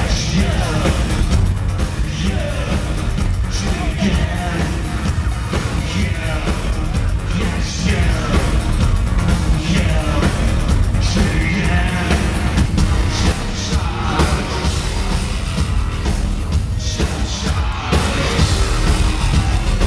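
A live rock band playing loud, with heavy bass and drums and a vocalist singing into a microphone, heard from within the audience in a concert hall.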